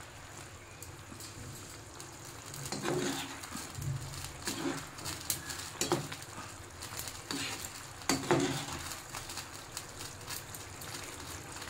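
Cabbage manchurian balls simmering in gravy in a nonstick frying pan with a low sizzle, while a slotted spoon stirs through the sauce, scraping and knocking against the pan every second or two.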